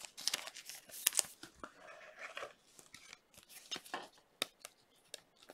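Glossy trading cards being handled and slid past one another in the hands: irregular soft scrapes and flicks of card stock, with sharper snaps about a second in and again just past four seconds.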